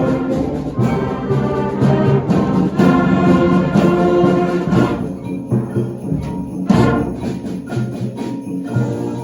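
Middle school concert band playing sustained brass and woodwind chords, with percussion strokes now and then. About halfway through the full sound thins out to lighter chords with a few struck accents.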